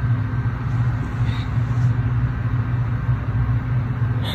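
A steady low hum or rumble in the room, unchanging throughout, with no speech.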